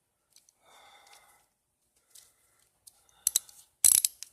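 Craftsman 3/8-inch ratchet clicking as it is worked by hand: a few scattered clicks, a short run of clicks a little over three seconds in and the loudest burst just before the end.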